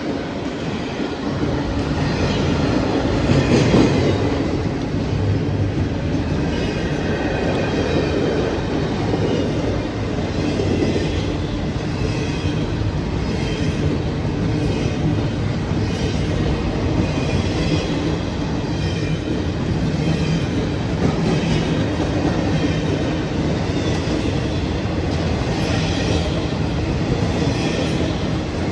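A freight train of empty double-stack well cars rolling past close by: a steady rumble of steel wheels on the rails, with regular clicking as the wheels pass over the track and a faint high wheel squeal at times.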